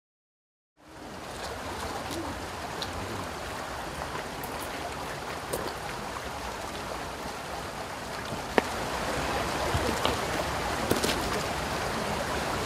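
Steady rushing outdoor ambience with a low rumble underneath, starting abruptly about a second in, with a few faint clicks, the sharpest about eight and a half seconds in.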